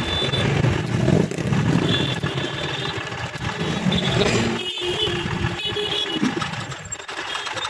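Road traffic with a motorcycle engine running close by, a continuous uneven rumble.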